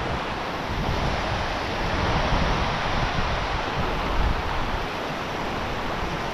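Small snowmelt stream rushing steadily over rocks, with wind buffeting the microphone in a low, uneven rumble.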